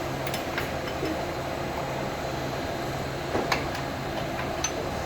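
Baggage carousel drive running: a steady motor hum with a low pulsing drone, and a few sharp metallic clicks from the chain and carousel parts, two of them close together about three and a half seconds in.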